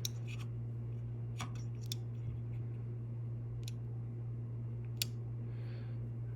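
A steady low electrical hum with about five scattered sharp clicks.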